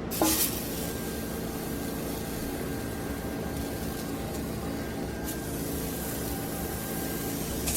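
Chicken of the woods mushroom pieces sizzling in a hot frying pan, the sizzle starting sharply as they go in and then running on as a steady hiss.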